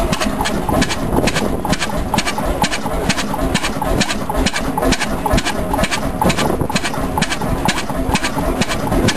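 Vintage single-cylinder stationary engine with heavy twin flywheels running steadily, giving an even rhythm of sharp knocks, several a second.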